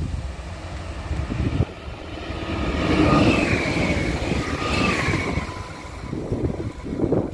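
S-Bahn electric multiple unit passing close by: a rumble of wheels on the rails and a whine from the traction motors that drops in pitch as the train goes past. The loudest part is in the middle. A quieter rumble follows near the end.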